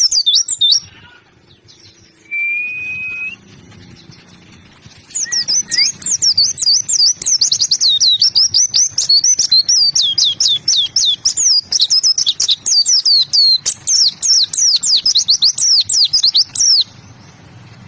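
A white-eye (pleci) singing hard. It starts with a brief burst of quick high chirps, then comes a pause with one short steady whistle. From about five seconds in there is a fast, unbroken stream of high, down-slurred chirps that stops shortly before the end.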